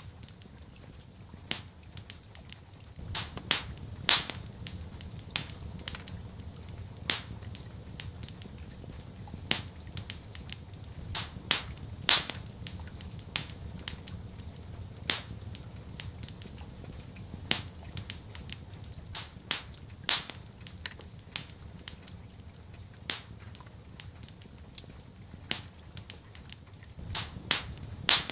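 Wood fire in a fireplace crackling, with irregular sharp pops several times a second, over a steady low rumble.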